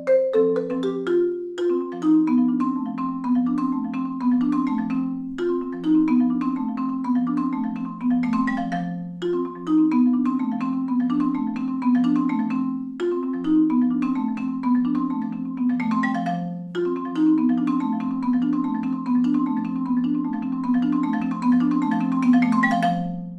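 Solo marimba with wooden bars, a Yamaha concert instrument played with four yarn mallets. Low notes are held under a repeating higher figure, in phrases that begin again about every four seconds. Near the end the final notes die away.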